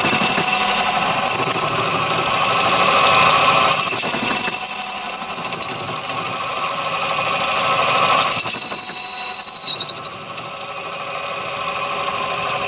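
Mini lathe running, its motor and gears whining steadily, while a boring bar cuts a 30 mm bore in a chromed brass workpiece. The tool squeals in the cut three times, each for a second or two, and the sound gets quieter near the end when the cut stops.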